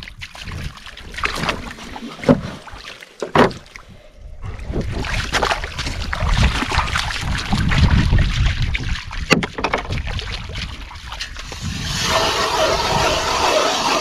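Dogs' paws splashing and slapping through meltwater on lake ice, in irregular strokes, with wind rumbling on the microphone. About two seconds before the end, a denser steady noise takes over.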